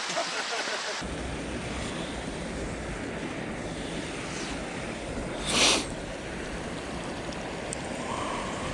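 Steady outdoor noise with wind rumbling on the microphone, and one short loud rushing burst about five and a half seconds in.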